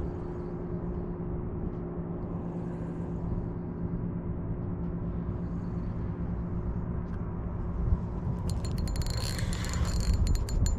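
Steady low wind rumble over a faint steady hum. About eight and a half seconds in, a quick run of sharp clicks begins.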